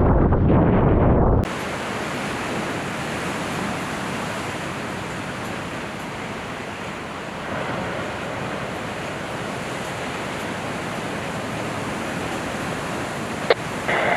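A loud low rumble cuts off abruptly about a second in, giving way to a steady, even rushing of ocean surf and wind. A sharp click comes near the end.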